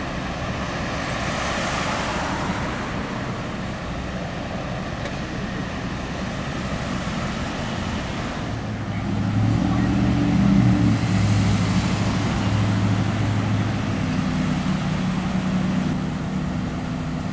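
Road traffic passing close by, with tyre hiss swelling and fading as vehicles go past. From about nine seconds in, a heavier engine hum, the loudest part, runs for several seconds before easing off.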